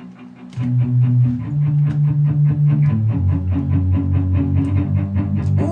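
Rock song starting up, with guitar and bass and a steady beat, coming in about half a second in.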